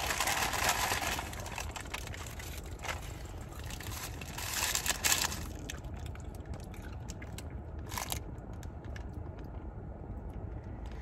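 Paper burger wrapper and paper fry bag rustling and crinkling as they are handled, in several bursts, the longest at the start. Underneath runs the low steady hum of the car's engine, left running.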